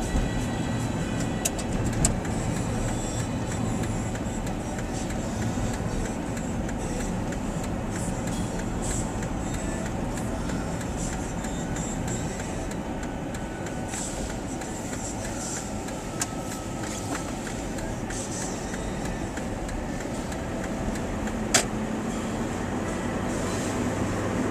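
Steady low rumbling noise of a running vehicle, with a few sharp clicks, the loudest near the end.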